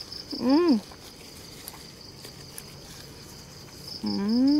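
A woman chewing a mouthful gives two closed-mouth "mmm" hums of enjoyment, each rising then falling in pitch, a short one just after the start and a longer one near the end. Night insects chirp throughout in a fast, steady, high pulsing trill.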